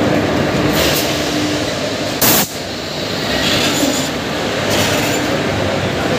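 Passenger coaches of an arriving express train rolling past at the platform: a steady rumble and clatter of wheels on rail. A short, very loud bang about two seconds in.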